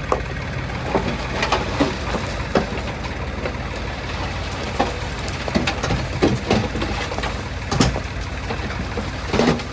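Diesel engine running steadily at low revs, with irregular clicks and knocks over it.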